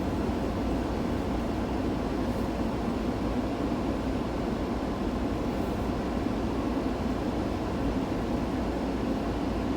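Steady rumble of a car on the move, heard from inside the cabin: engine and road noise, even in level.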